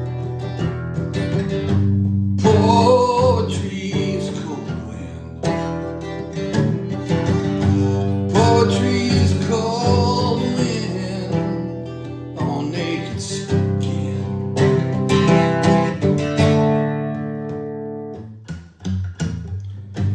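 Guitar playing: sustained, strummed chords ring out. A wavering melody line rises over them twice, and the notes fade away near the end.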